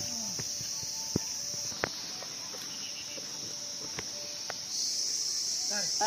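A steady, high-pitched chorus of insects droning, louder at the start and again after about five seconds, with a few sharp knocks in between.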